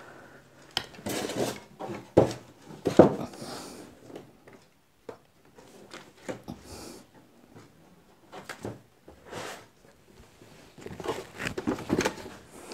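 Handling noise as a flat-screen monitor is lifted out of its polystyrene foam packing: irregular knocks and bumps with short scraping and rustling, loudest about two to three seconds in and again near the end.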